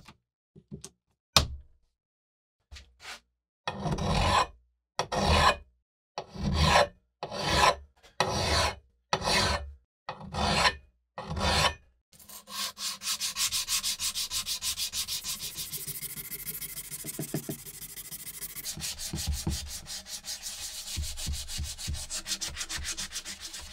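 Hand-held abrasive block rubbed along the steel edge bevel of a hatchet head to sharpen it. After a few light clicks come about eight slow separate strokes, then, from about halfway, quick short back-and-forth rubbing that keeps on steadily.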